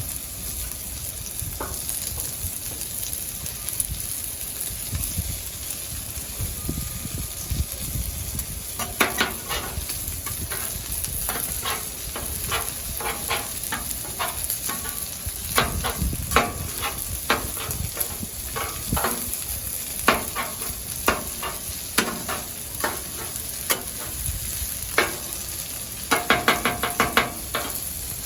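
Food sizzling steadily on a Blackstone steel flat-top griddle while a metal spatula scrapes and taps on the griddle surface. The scraping and tapping comes in irregular strokes from about a third of the way in. Near the end it turns into a fast, even run of taps, like chopping the meat on the griddle.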